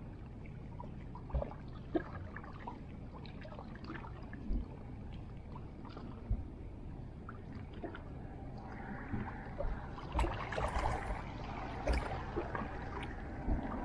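Small waves lapping and trickling among shoreline rocks, with a few sharp knocks, growing louder in the second half.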